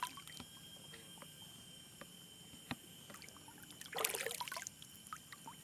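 Faint water lapping and small splashes around people standing in lake water, with a brief louder splash about four seconds in.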